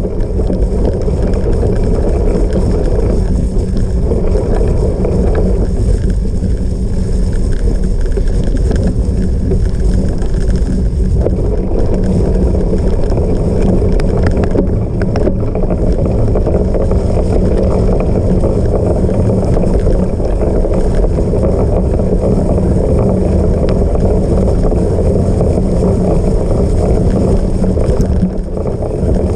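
Steady wind buffeting on the microphone, mixed with the rolling rumble of a cyclocross bike ridden at race pace over rough off-road ground.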